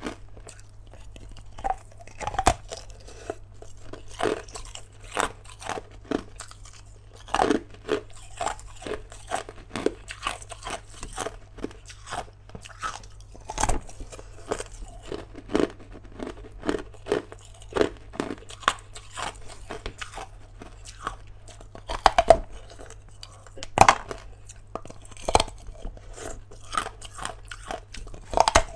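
Hard ice being bitten and chewed close up: a run of sharp, irregular crunches and cracks, with the loudest bites a little after twenty seconds in.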